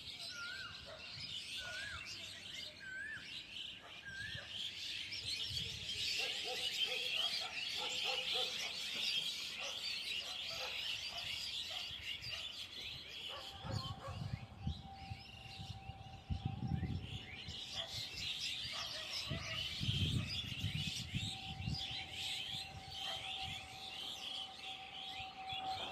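Many small birds chirping at once in a dense, busy chorus. During the first few seconds one bird repeats a short up-and-down whistle about once a second, and a single steady note is held through much of the second half.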